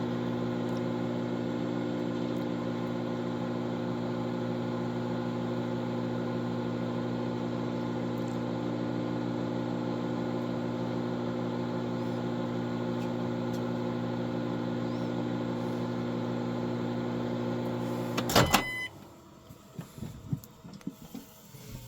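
Microwave oven running with a steady hum while it cooks eggs. About 18 seconds in, it cuts off with a loud clack, followed by a few faint clatters.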